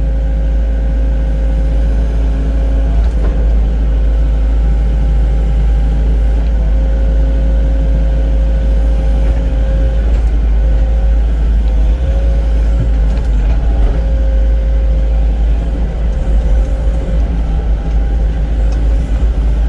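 Excavator's diesel engine running steadily under working load as the operator levels ground, with a steady whine that wavers slightly and fades out near the end.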